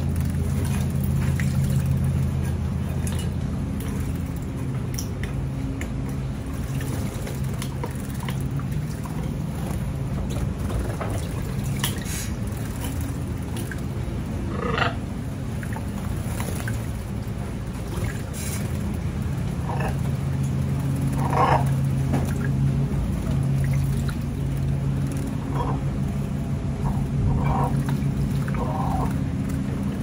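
Canaries bathing in a shallow stone birdbath: short splashes of wings beating in the water, scattered and more frequent in the second half, over a steady low hum.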